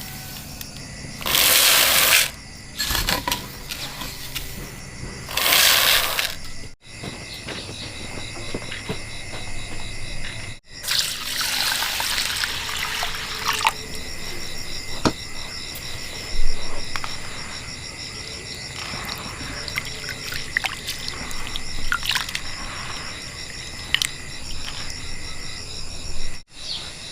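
Water being poured in several separate pours, each lasting a second or two, over a faint steady high-pitched tone.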